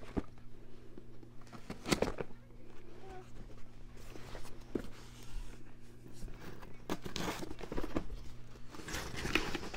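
A knife cutting open a cardboard shipping box: scattered scrapes and taps as the blade slits the packing tape and the box is handled, with a longer scratchy stretch near the end.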